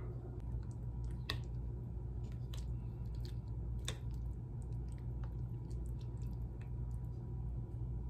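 Metal spoon stirring through yogurt with fruit and granola in a ceramic bowl: soft wet squishing and small ticks, with two sharper clinks of the spoon against the bowl. A steady low hum runs underneath.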